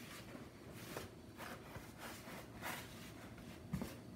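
Wooden spoon stirring a dry, sticky pizza dough in a plastic bowl: soft scraping strokes about once a second, with a sharper knock near the end.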